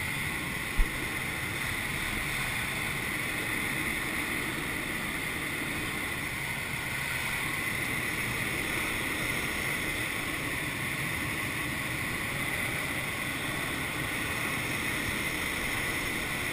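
Steady rush of airflow over a glider's canopy in flight, with a single short click about a second in.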